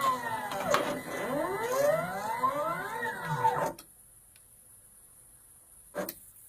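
Stepper motors of a CNC X-Y table whining, their pitch sweeping up and down as the axes speed up and slow down. They stop abruptly a little under four seconds in, leaving near quiet broken by a single click about six seconds in.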